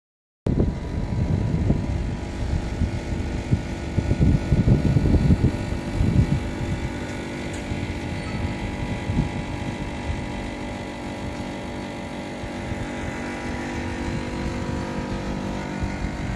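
Night-time city ambience heard from high up: a steady hum of distant traffic and machinery with several faint steady tones. Uneven low rumbling in the first several seconds eases off later.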